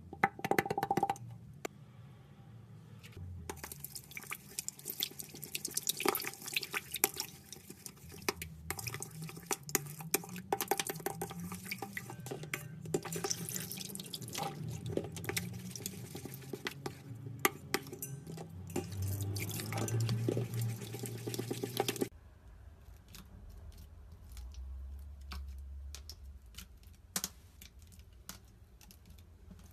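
Slime from a stress ball being cut and worked by hand: dense wet crackling and clicking, dropping suddenly to fainter, sparser clicks about two-thirds of the way through.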